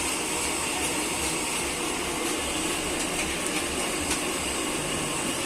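Malpua batter frying in hot oil, a steady sizzling hiss with a few faint crackles.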